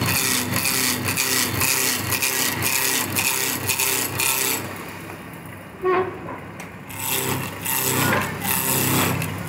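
Wood lathe running while a turning tool cuts the spinning wood: a rhythmic scraping of about four strokes a second over a steady motor hum. About halfway through the cutting stops, leaving the hum with a brief squeak, and lighter scraping returns near the end.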